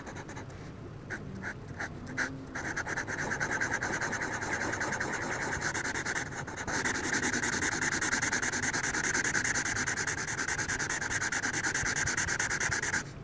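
Yellow Sharpie marker scribbling rapidly back and forth on drawing-pad paper, filling in a large area. The scratchy strokes start a couple of seconds in and grow louder about halfway through.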